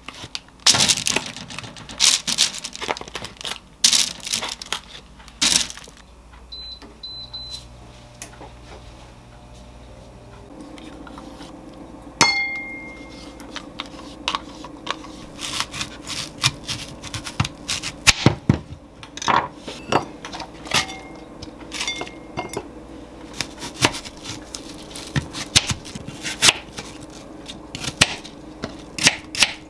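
Kitchen handling sounds: a plastic bag crinkles as chicken-breast balls are tipped into a paper-lined wire air-fryer basket. Then come a few short electronic beeps and a steady appliance hum that runs on. Over the hum, a spoon scrapes yogurt out of a cup into a bowl, and near the end a knife clicks repeatedly through an apple onto a wooden board.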